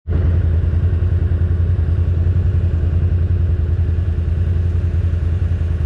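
ATV engine running steadily at low revs, a deep, rapid, even pulsing.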